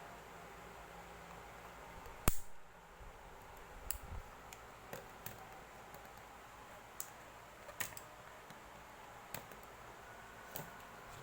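Scattered short clicks and taps of small hard objects being handled, with one sharp, louder click about two seconds in, over a faint steady hum.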